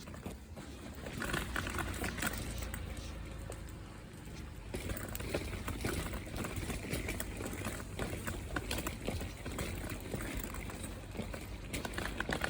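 A Bichon Frise smacking and chewing its mouth after a sneeze: irregular wet clicks and smacks, over a low steady rumble.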